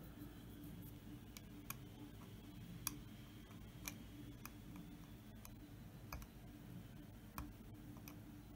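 Faint, irregular ticks and light scrapes of a fine-pointed metal tool picking small bits out of the V-carved lettering of a sign.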